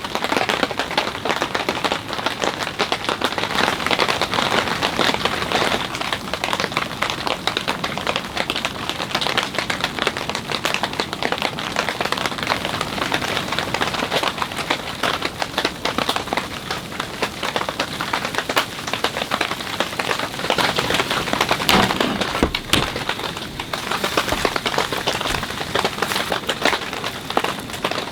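Winter rain falling steadily: a dense, even patter of drops, with a few heavier knocks about three-quarters of the way through.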